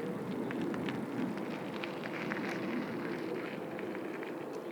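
Distant jet aircraft engine noise: a steady low rumble with a crackling edge.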